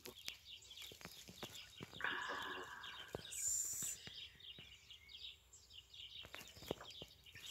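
Faint sips, swallows and breaths of a person drinking homemade beet kvass from a glass, with small mouth and glass clicks. Faint bird chirping runs underneath throughout.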